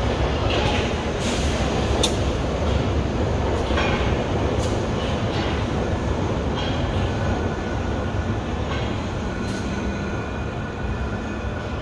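London Underground Bakerloo line tube train pulling into the platform and slowing: a steady rumble of wheels on rails with a few sharp clanks over the track, and a thin squeal coming in about halfway through as it slows.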